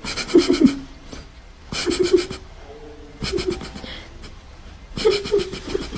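Domestic cat giving four short, raspy, low-pitched meows about a second and a half apart while its chin is being scratched.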